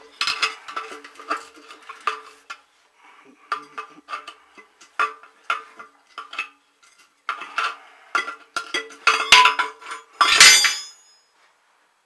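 A steel bar knocking and levering at a broken bearing's outer ring inside a concrete mixer's bearing housing. It makes irregular ringing metallic clinks and knocks, several a second, that grow loudest near the end with one longer, harsher clatter about ten seconds in.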